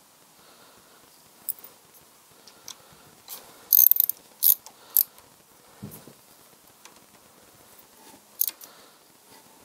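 Ratchet clicking in short spells as the bolts of a motorcycle's bar risers are tightened, with sharp metal clicks; the loudest cluster comes a little under four seconds in.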